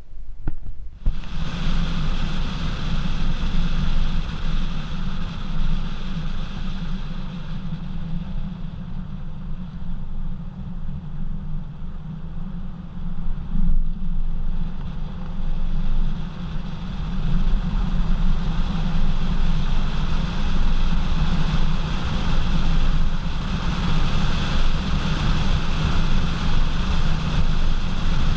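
Road roar from a tire of a 2014 Mercedes-Benz GL350 rolling on the road, picked up by a camera mounted at the wheel, with wind buffeting the microphone. It eases off midway as the SUV slows, then grows louder as it speeds up. The owner is chasing a loud roar that could be the badly worn tires or a wheel bearing.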